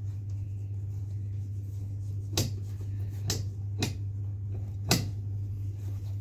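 Allen key clicking against a bolt in a gaming chair's backrest bracket as the bolt is turned tight: four short, sharp metallic clicks, over a steady low hum.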